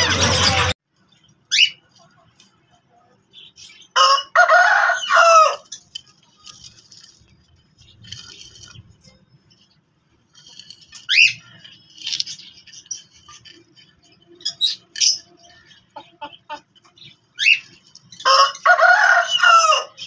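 Bird calls: a few short rising chirps scattered through, and two longer harsh calls, about four seconds in and near the end.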